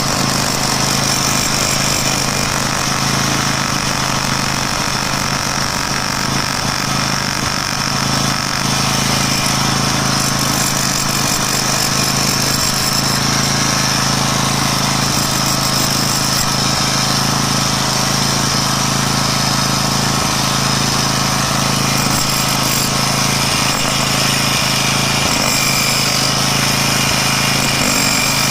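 Jackhammer running steadily as it breaks out the cement joints between floor tiles.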